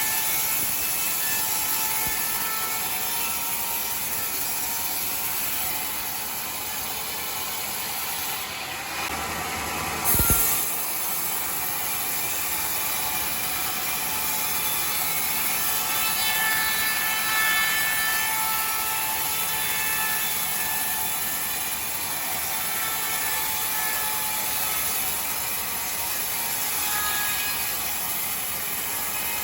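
Sawmill saw running steadily through timber, a continuous hissing whine with faint tones that shift as the cut goes on. A short knock sounds about ten seconds in.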